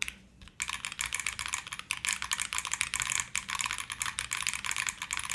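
Fast, continuous typing on a Class60 custom mechanical keyboard with Cherry MX Black switches and GMK keycaps, a quick run of keystroke clicks. It starts about half a second in.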